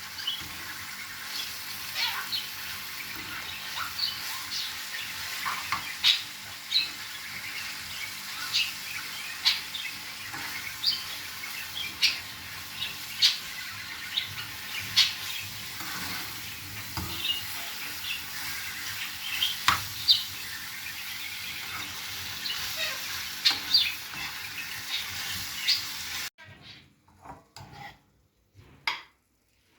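Food sizzling in a frying pan while a utensil stirs it, with sharp taps against the pan about once a second. Near the end the sizzling cuts off, leaving a few clinks of utensils and dishes.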